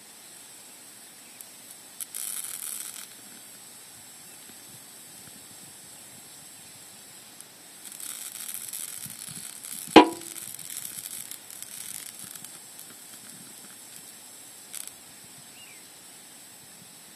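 Handling of a metal backpacking stove: a brief burst of hissy noise about two seconds in, a longer stretch of rustling hiss later, and one sharp metallic clink that rings briefly, about ten seconds in.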